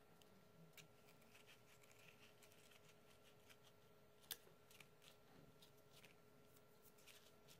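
Faint rustling and light taps of paper bow loops being handled and pressed down by hand, with a sharper tap about four seconds in.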